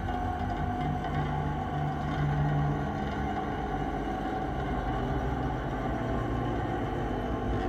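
Steady, low rumbling drone with a few held tones: dark ambient sound design under the film's closing images.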